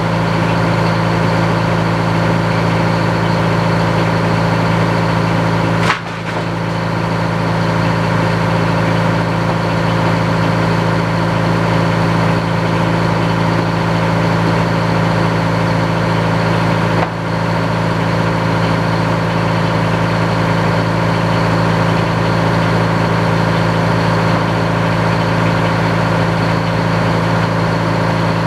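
Antique sawmill running: a steady engine drone. The sound dips sharply twice and quickly comes back, about six seconds in and again near seventeen seconds.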